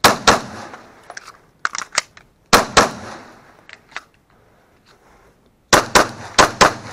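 Glock pistol fired in quick pairs: two shots at the start, two more about two and a half seconds in, then four rapid shots near the end, each shot trailing off briefly. Softer clicks and knocks come between the first two pairs.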